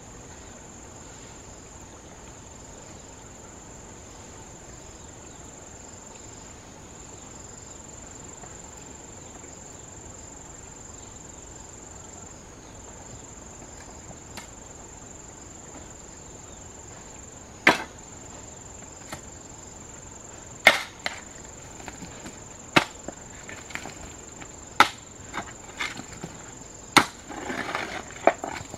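A hoe blade chopping into hard earth and stones. Sharp strikes come roughly every two seconds from a little past halfway, with scraping soil near the end. Under them runs a steady high-pitched insect drone.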